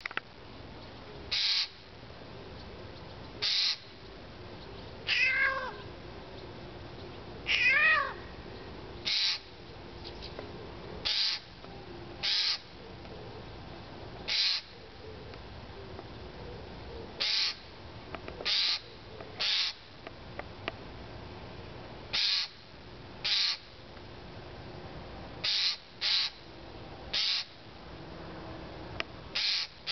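Eurasian jay calling: short harsh rasping calls, one every one to two seconds, and twice, about 5 and 8 seconds in, a cat-like mew that falls in pitch. The recordist takes the calling as meant to scare him.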